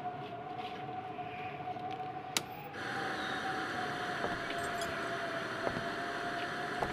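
A single sustained tone, steady with a slight waver, held over a hiss: an eerie horror-film drone. A sharp click comes about two and a half seconds in, and the hiss grows louder just after.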